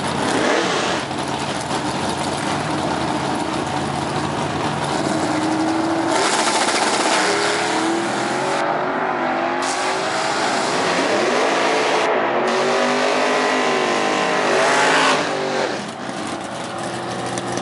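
Two drag racers, a Corvette Sting Ray's V8 and a pickup's engine, running at the start line and then launching down the drag strip at full throttle. Engine pitch climbs and drops back several times as they shift up through the gears.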